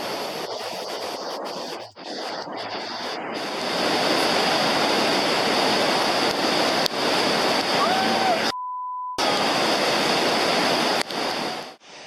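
Floodwater rushing in a steady roar that grows louder about four seconds in. About eight and a half seconds in, a short steady beep briefly replaces all other sound.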